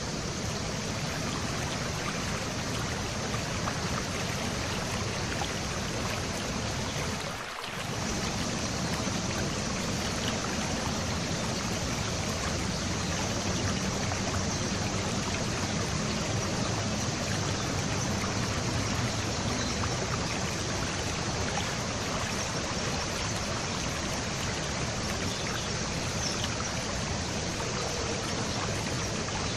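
Steady rush of flowing stream water, with a brief dip about seven and a half seconds in.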